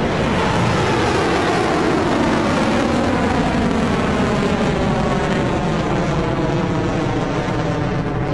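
Rocket Lab Electron rocket's nine Rutherford first-stage engines running at full thrust just after liftoff: a loud, steady roar. A slow rising sweep runs through its tone as the rocket climbs.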